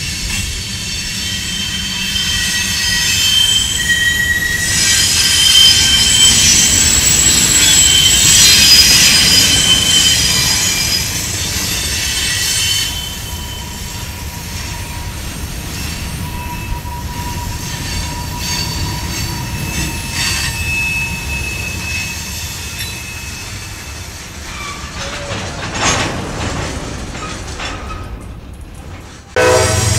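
Empty grain covered-hopper cars of a freight train rolling past, their wheels squealing on the rail with several high, steady tones over the rumble of the trucks. The squeal is loudest in the first half, then gives way to a quieter rolling rumble with an occasional squeal before the sound cuts off abruptly near the end.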